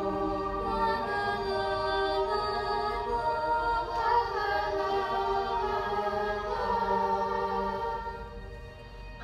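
Slow, gentle music of long held chords with choir-like voices, softening near the end.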